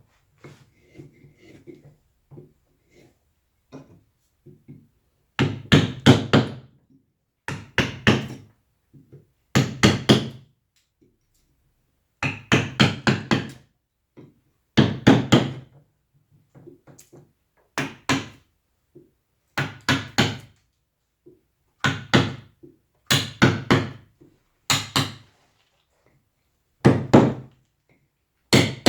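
Mallet strikes driving a carving chisel into wood, in quick runs of three to five blows, one run every two seconds or so with short pauses, and faint small taps between the runs.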